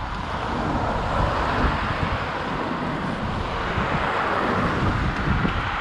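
Wind buffeting the microphone over a steady rush of road-traffic noise.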